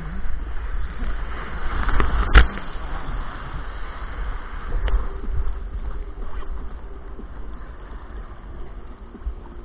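Wind rumble and sea noise on the microphone of a kayak-mounted camera riding low in the surf. A sharp knock comes about two and a half seconds in and is the loudest moment, with a fainter one near five seconds.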